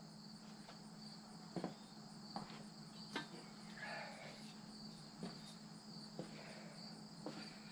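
Faint steady high-pitched insect trill, like crickets, with a few light clicks and knocks as table parts are handled.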